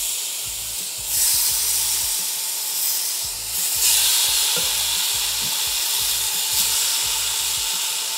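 Steady sizzling from seared beef chunks being set into a hot pressure-cooker pot with tongs. The sizzle rises about a second in and again around four seconds in as more pieces go in.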